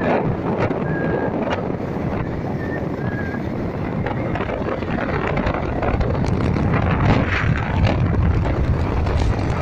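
Wind buffeting the microphone on a moving motorcycle, with the bike's engine running underneath as a steady low rumble.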